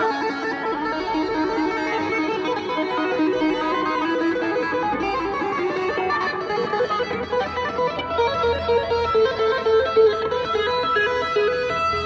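Amplified electric guitar played live, a lead line of single notes stepping in pitch with a few bent notes. A low bass part joins about halfway through.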